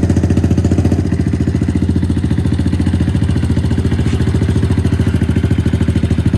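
2020 Honda CRF110's single-cylinder four-stroke engine, just started, idling steadily through a BBR D3 aftermarket exhaust, with an even rapid exhaust pulse.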